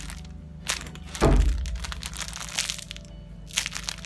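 Handling noise from a foam squishy toy being held and squeezed close to the microphone: a sharp click, then a heavy thump about a second in, with light rustling and clicking around them.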